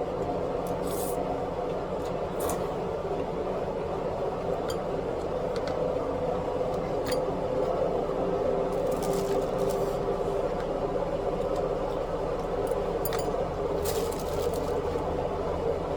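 Steady humming of a household machine, with a tone that wavers slightly in pitch. A few short clicks and crackles stand out over it.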